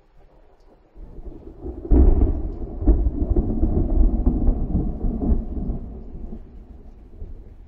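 Thunder: a low rumble starts about a second in, breaks into a loud crack about two seconds in, then rolls on with several further rumbles and fades out near the end.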